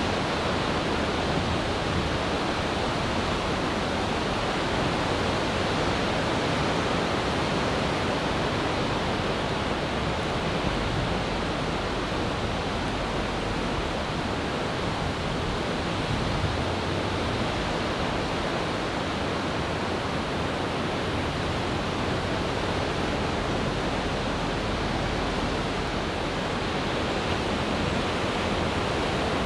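Ocean surf breaking and washing in: a steady, even wash of noise with no single wave standing out.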